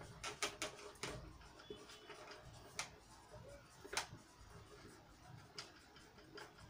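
Marker pen writing on a whiteboard: faint scratching with a scatter of sharper taps and clicks of the tip against the board, the loudest about three and four seconds in.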